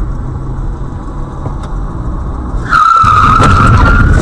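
Car engine and road rumble, then about two and a half seconds in, tyres squeal loudly in a hard skid for about a second and a half.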